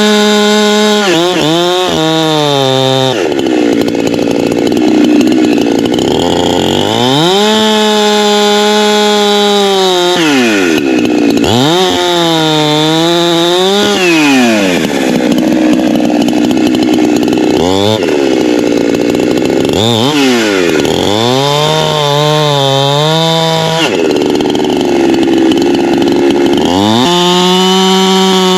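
Two-stroke chainsaw, the Holzfforma G372XP Pro, cutting up a felled tree. The engine runs wide open, then its pitch sinks as the chain bites into the wood and climbs back as each cut ends, over and over through a series of cuts.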